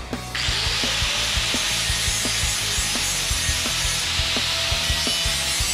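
Corded DeWalt angle grinder grinding the end of a stainless steel exhaust tube bend: a steady, hissing grind of the abrasive disc on the metal, starting about a third of a second in.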